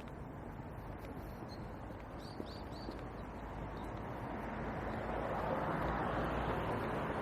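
Road traffic noise that swells steadily from about four seconds in as vehicles approach, with three faint short high chirps a little over two seconds in.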